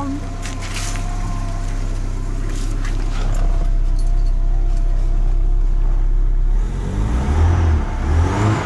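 Peugeot 505 ST engine running steadily after a carburetor swap. It turns uneven and pulsing for a moment near the end.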